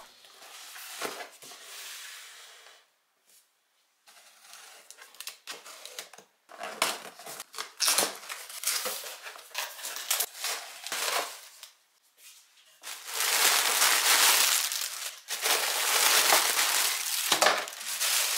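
A cardboard shipping box being opened by hand, its flaps handled and the packing material inside crumpled and rustled in stretches, loudest in a long spell near the end.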